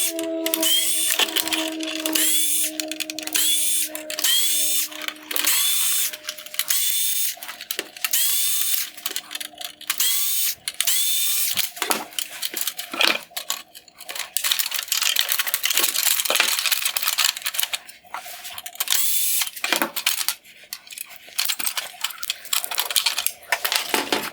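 Small power screwdriver running in many short, repeated bursts as it backs out T10 Torx screws.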